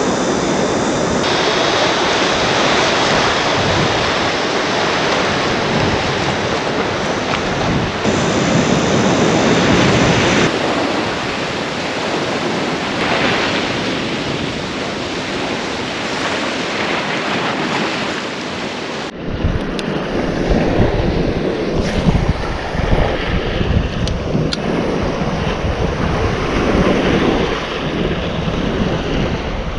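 Ocean surf breaking and washing against a rocky shoreline, with wind buffeting the microphone. About two-thirds of the way through it turns gustier and heavier, with an uneven low rumble.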